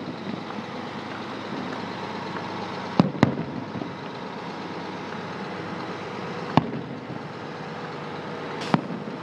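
Aerial fireworks bursting at a distance: four sharp bangs, two in quick succession about three seconds in, one about six and a half seconds in and one near the end. Under them runs steady vehicle noise from trucks.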